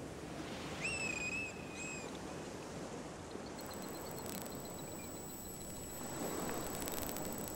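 Steady rush of sea water, with two short high whistles about a second in. A faint thin high tone comes in about halfway.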